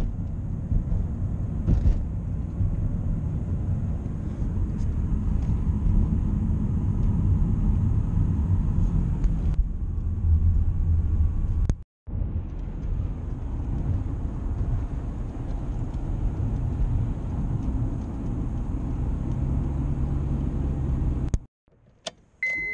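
Road and engine noise inside a moving car's cabin: a steady low rumble that drops out briefly about halfway through and again near the end.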